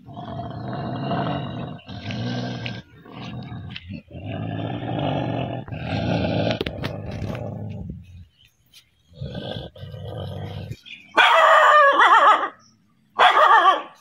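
Dogs growling at their own reflection in a mirror: low growls in long stretches, then two loud, higher-pitched snarling barks near the end.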